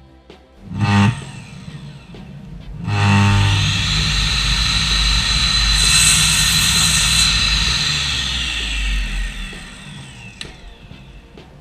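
Bosch GCM 8 SJL sliding mitre saw: the motor is switched on briefly about a second in, then started again and runs up to a steady high whine while the blade cuts through a workpiece in the middle. Near the end the motor is let go and the blade spins down with a falling whine.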